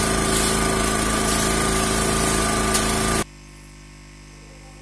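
Honda EBK650 portable generator running steadily, just started and running without trouble. About three seconds in the sound cuts off abruptly, leaving a much quieter steady hum.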